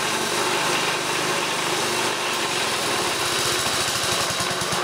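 Honda 5 hp single-cylinder four-stroke engine running, belt-driving a compressor that sounds crunchy inside. In the last second or two the engine's beat grows slower and more distinct as it bogs down against the compressor, which is seizing.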